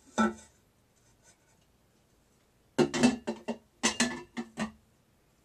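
Ceramic cookie jar lids clinking and scraping as the head-shaped lids of an owl jar and a cat jar are lifted off and set onto the other jar, in two clusters of knocks about three and four seconds in.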